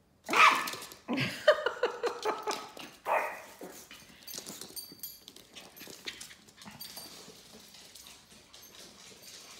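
Yorkshire terriers yipping and barking in play: a loud yap about half a second in, a quick run of yaps over the next second and a half, another around three seconds, then quieter clicks and scuffling.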